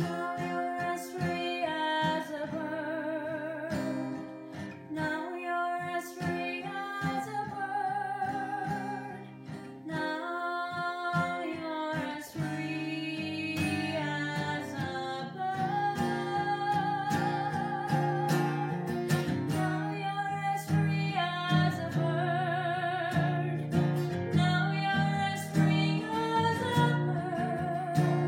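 Music: plucked and strummed guitar under a melody line held with vibrato, the accompaniment growing fuller in the low range about twelve seconds in.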